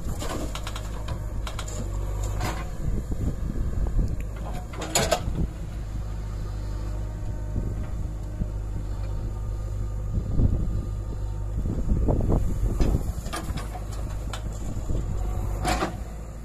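JCB backhoe loader digging and loading soil: its diesel engine and hydraulics drone steadily, with several sharp metallic clanks from the bucket and boom, the loudest about five seconds in.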